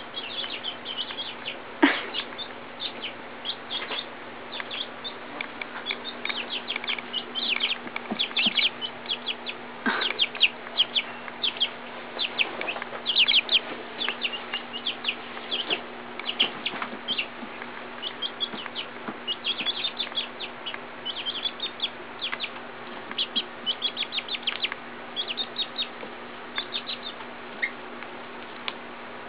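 Young chicks peeping: a dense run of short, high cheeps, several a second, with a sharp knock about two seconds in.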